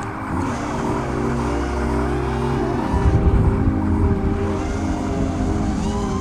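Four brushless motors of a 5-inch FPV freestyle quad (BrotherHobby R3 2300kv motors on Dalprop 5045 propellers) whining, the pitch sliding up and down with the throttle. A louder, rougher rush comes about three seconds in.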